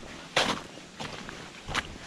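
Two footsteps of a hiker's boots crunching on frozen, rocky ground at the edge of snow, about a second and a half apart.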